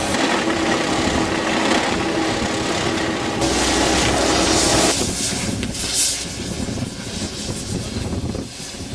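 Road-rail excavator working trackside, its engine and hydraulics running steadily with a constant hum. The sound changes abruptly about three and a half and five seconds in.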